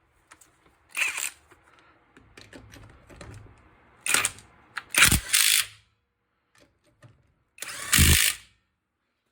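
Tacklife 20V brushless cordless impact wrench run in four short bursts on nuts, with small clicks of handling in between. The last two bursts are the longest and loudest.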